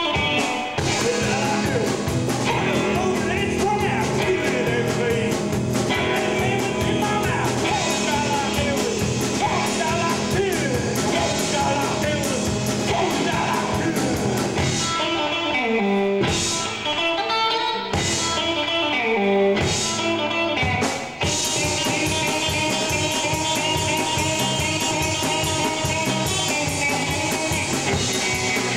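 Live rock band playing loud through a club PA: electric guitar, bass and drum kit. Around the middle the band stops short a few times, with brief breaks between hits, then plays on.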